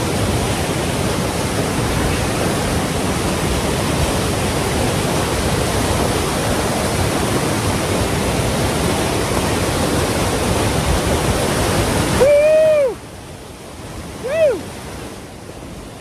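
Rushing mountain river, a loud, steady torrent of water that cuts off abruptly about 13 seconds in. Two short pitched calls, each rising then falling, come just before and just after the cut.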